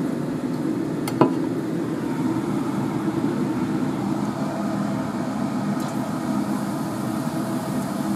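Steady whirring hum of a kitchen fan running, with one sharp click about a second in.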